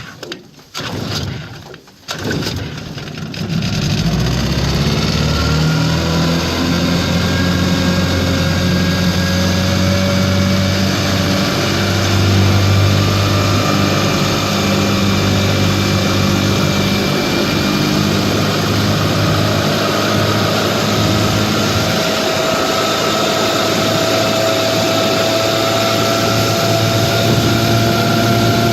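1955 Johnson QD-16 outboard's two-stroke twin being pull-started: a few short sputters in the first seconds, then it catches about four seconds in and keeps running steadily, its pitch creeping up slightly near the end. This motor is hard to start.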